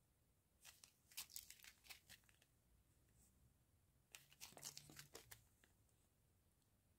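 Faint crinkling of small clear plastic bags of round diamond-painting drills being handled. It comes in two short spells of soft crackles, about a second in and again around four to five seconds in.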